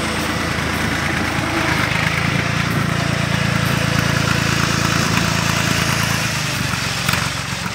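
Fiat 4550 tractor engine running as the tractor drives slowly on gravel. The engine hum grows stronger from about two seconds in and eases off again near the end.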